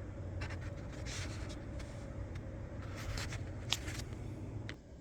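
Air filter being pulled out of its slot: scraping and rustling handling noises with a sharp click a little before the end, over a steady low hum that drops away near the end.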